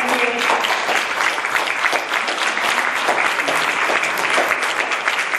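Audience applauding, many hands clapping together without a break.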